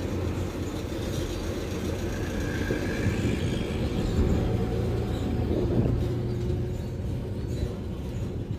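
Container truck's engine running as the truck moves slowly, heard from inside the cab as a steady low rumble.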